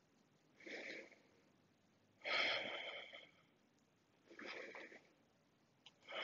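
A woman breathing audibly and deliberately in yoga-style breaths while holding a lunge: three breaths a second or two apart, the second longest and loudest, with another beginning at the very end.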